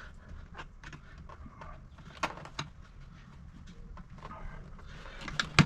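Scattered light clicks and knocks of metal seat parts and brackets being handled, with one sharp knock near the end.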